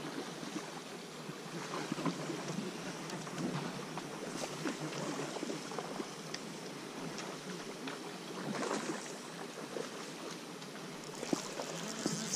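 Steady rushing outdoor background noise with scattered faint ticks and clicks; it brightens and grows a little louder near the end.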